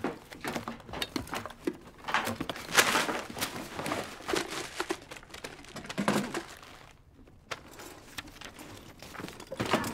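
Someone rummaging through clutter by hand: irregular knocks, clinks and rustling as objects are moved and shuffled, quieter for a moment about seven seconds in.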